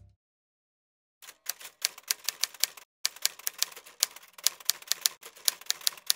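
Rapid typewriter keystroke clicks, several a second, starting a little over a second in and breaking off briefly twice: a typing sound effect.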